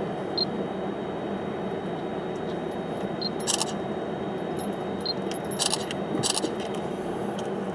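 Steady low rumble of a car heard from inside its cabin, with a few brief, high metallic jingles about halfway through and again later.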